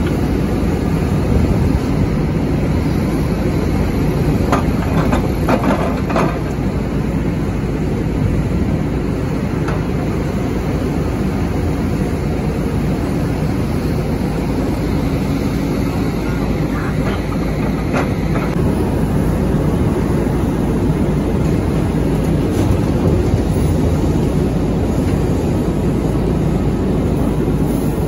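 SANY SY500H hydraulic excavator's diesel engine running steadily under load as it digs overburden. A few short knocks from the bucket working through rock come about five seconds in and again around eighteen seconds.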